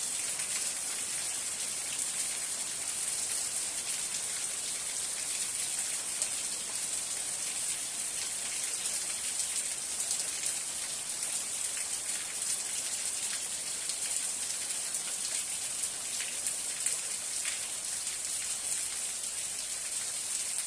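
Steady rain falling, a dense hiss with many small drop ticks on a surface.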